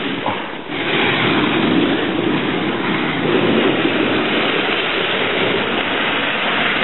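Steady rushing noise of wind buffeting the camera's microphone, with a brief dip in level about half a second in.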